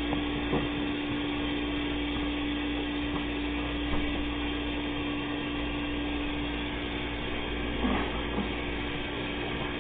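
Tap water running steadily into a sink during hand-washing, with a steady low hum alongside and a few faint knocks.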